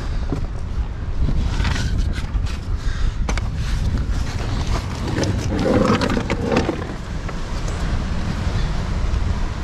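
Wind buffeting a body-worn microphone, with scrapes and knocks of hands, shoes and a padded rod bag against rock as a person climbs down a narrow crevice. A louder rustling scrape comes about halfway through.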